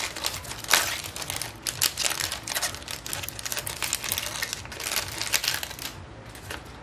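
Foil wrapper of a Magic: The Gathering Core 2021 Collector Booster pack crinkling as the cards are slid out of it and handled: a quick run of small crackles and clicks that thins out near the end.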